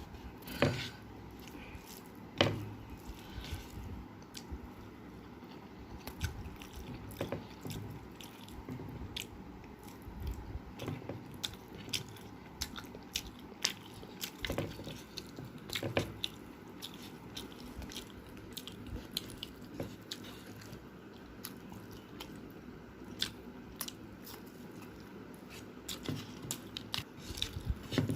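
Close-miked eating with the hands: wet chewing and mouth sounds of rice and curry, with many short sharp crunchy clicks scattered throughout.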